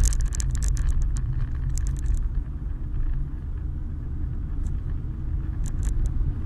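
Cabin sound of a vehicle driving on a snowy road: a steady low rumble from the tyres and engine. A rapid patter of fine ticks runs through the first two seconds, and a few single ticks come near the end.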